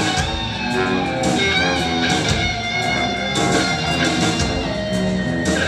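Live rock band playing, electric guitar to the fore over drums and bass.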